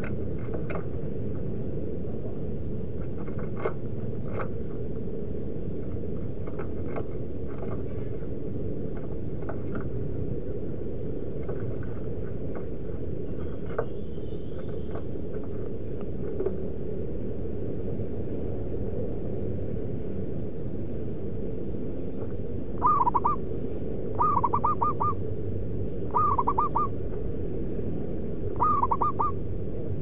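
Zebra dove cooing: four short bursts of rapid, trilling coos in the last third, over steady low background noise, with scattered faint clicks earlier on.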